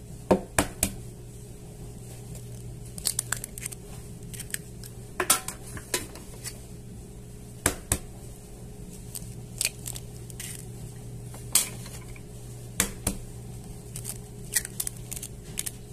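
Eggs being cracked one after another into a bowl of cheese-bread dough: a string of short sharp taps and the crackle of shells being broken open, scattered irregularly, over a steady low hum.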